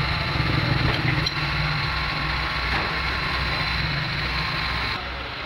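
A motor or engine running steadily, with an even low throbbing and a thin high whine over it.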